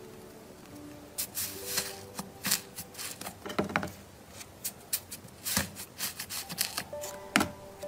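Puffed-up blue slime in a clear plastic cup being poked and squished by fingers, giving a run of sticky crackles and pops as the trapped air breaks, with a few louder pops near the middle and near the end. Soft background music plays underneath.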